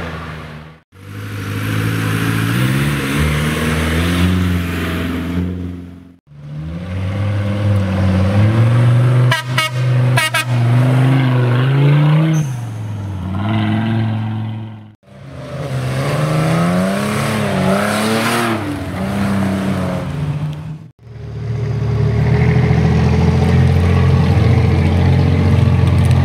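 Off-road 4x4 engines revving up and down under load as the vehicles climb, in several stretches that break off abruptly. About halfway through, two brief sharp noises cut through the engine sound.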